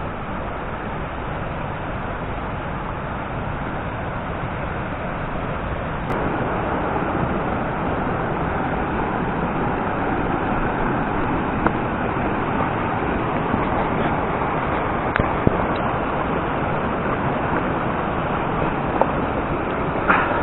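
Mountain stream cascading down a rocky gully: a steady rush of water that gets louder about six seconds in, with a few small knocks later on.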